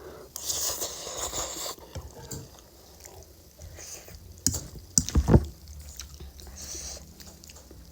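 A person chewing and slurping spicy Korean instant noodles close to the microphone, with wet, squishy mouth sounds and a louder burst about five seconds in.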